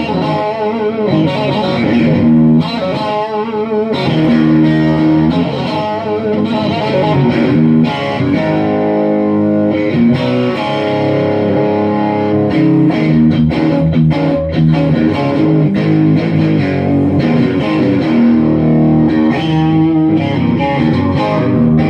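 Custom one-piece swamp ash, neck-through electric guitar played through an amplifier with light distortion: sustained single notes and chords, many shaken with vibrato, with a long sustain.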